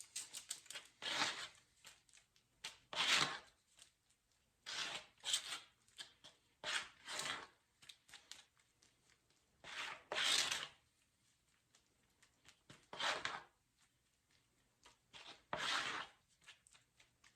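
Short-strand fiberglass body filler being scraped and spread with a spreader: faint separate scraping strokes, each under half a second, one to three seconds apart.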